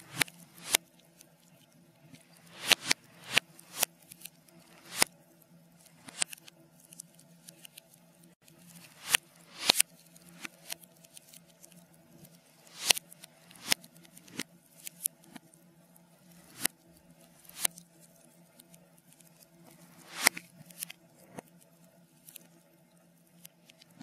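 Log fire crackling, played backwards: irregular sharp pops and snaps, some swelling up and cutting off abruptly, over a faint steady hum.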